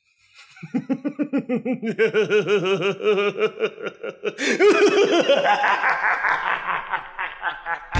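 A man laughing in a long, rapid cackle of many 'ha' pulses a second. It grows louder and climbs in pitch about halfway through, then tails off near the end.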